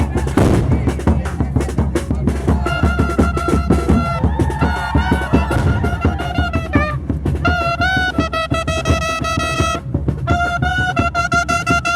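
Chirimía band playing. Drums beat alone at first. About two and a half seconds in, a high wind melody of long held notes joins over the drumbeat, breaking off briefly near the end and then starting again.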